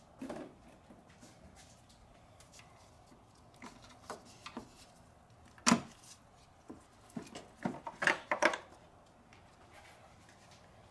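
Scattered clicks and knocks of a gloved hand working at a Toyota Sienna's plastic air filter box, pulling its small hoses free. The sharpest click comes about halfway through, with a quick run of rattling clicks about three-quarters through.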